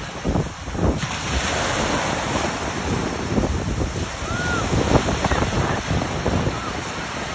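Small sea waves breaking and washing onto a sandy shore, with wind buffeting the phone's microphone in gusts.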